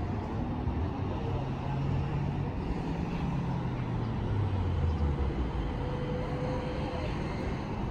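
Road traffic noise with a vehicle engine running low.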